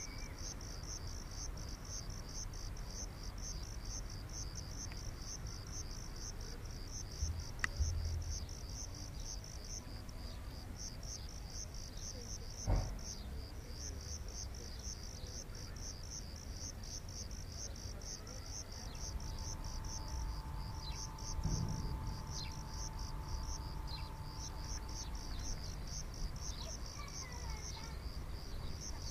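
An insect chirping steadily in an even pulse of about three high chirps a second, over a low background rumble. A single sharp knock comes about halfway through, and a faint steady hum sets in during the second half.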